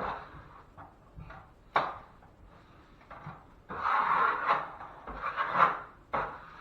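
Drywall knife scraping across joint compound in a series of strokes, a short sharp one first and then longer drawn scrapes, as the mud is smoothed on a drywall patch.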